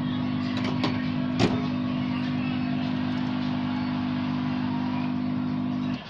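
Steady machine hum with a low droning tone, a few light clicks in the first second and a sharper tap about a second and a half in; the hum cuts off suddenly at the end.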